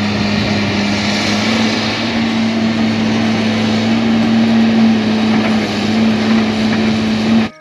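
Caterpillar 325 hydraulic excavator's diesel engine working under load with a steady hum, cutting off suddenly near the end.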